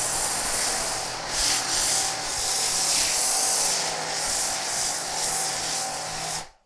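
Foam cannon on a Kränzle 1122 TST pressure washer spraying snow foam onto car paint: a steady spraying hiss that swells and dips as the spray is swept over the car, with a low steady hum beneath. It cuts off suddenly near the end as the trigger is released.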